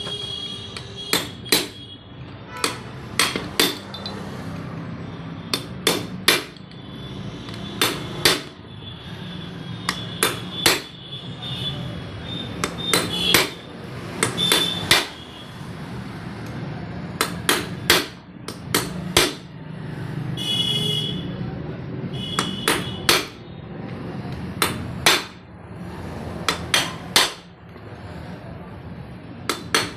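Hammer striking metal engine parts again and again, irregularly spaced blows often in quick pairs, each with a short metallic ring, over a steady low hum.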